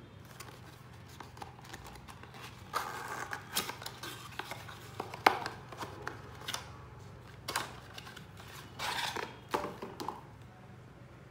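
A small cardboard carton being handled and opened by hand: irregular rustles of card and light clicks and taps as its end flap is pulled open and a plastic cream tube is slid out, the sharpest click about five seconds in.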